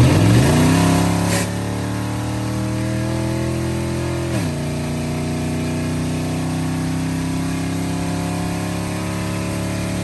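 Truck engine accelerating hard to overtake: its pitch rises in the first second or so, then drops sharply about four seconds in as the transmission shifts up, and the engine pulls steadily at the higher gear.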